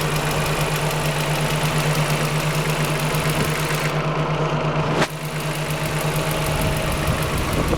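A 5th-generation Honda Prelude's four-cylinder engine running steadily with a fast, regular knocking tick, which the owner takes for bent valves. About five seconds in, the highs briefly fade and there is a sharp click.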